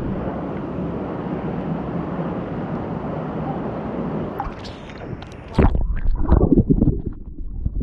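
Steady rush of water, then from about five and a half seconds in loud, irregular splashing and sloshing close to the microphone.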